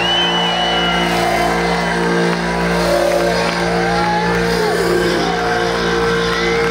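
Live concert sound in a break in the song: a sustained electronic chord from the PA, held over a cheering, whistling crowd.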